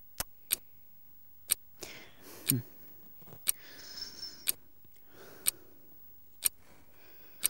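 Alarm clock ticking, one sharp tick about every second: the strange noise keeping the listener awake. Bedding rustles softly between the ticks as he turns over.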